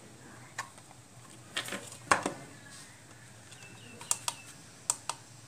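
Scattered sharp clicks and knocks as a 3.5 mm audio plug and a small metal-cased module are handled and connected by hand. There are about eight of them, the loudest about two seconds in.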